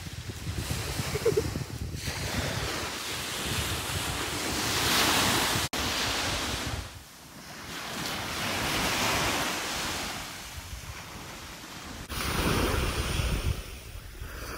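Small sea waves breaking and washing up a sand-and-shingle beach, the surf swelling and fading every few seconds, with wind rumbling on the microphone. The sound breaks off abruptly about six seconds in and jumps louder again near the end.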